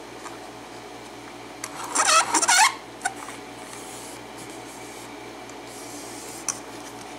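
A lock and metal lockpicking tools being handled: a brief burst of metallic rattling and scraping about two seconds in, then a few light clicks.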